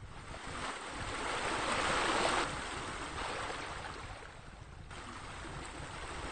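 Rushing water noise, like pool water features spilling into the pool, over a low steady rumble. It swells to a peak about two seconds in, drops suddenly, then builds again toward the end.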